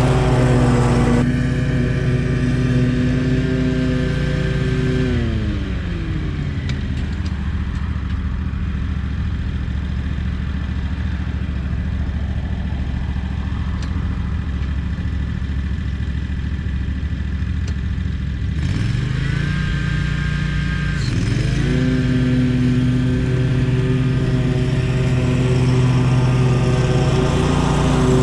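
Lawn mower engine running at full throttle, throttled down about five seconds in to a low idle, then revved back up to full speed near the end.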